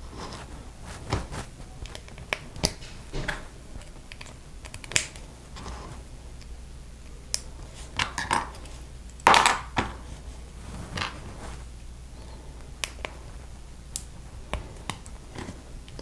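Plastic Lego bricks being handled and snapped together: scattered sharp clicks and small knocks, with a louder clatter of pieces about nine seconds in.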